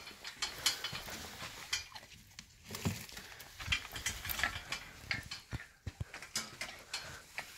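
Orange plastic slow-feeder bowl of dry kibble being handled, the kibble rattling and the bowl clattering in irregular clicks and knocks.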